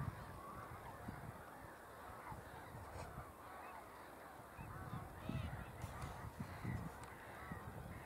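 Faint chorus of a distant flock of wetland birds calling continuously over one another, with a low irregular rumble underneath.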